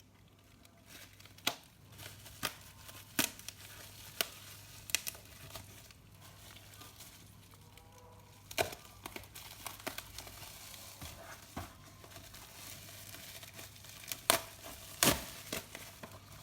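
Bubble wrap and plastic packaging being crinkled and torn off a model kit box by hand, with scattered sharp snaps and clicks that are loudest near the end.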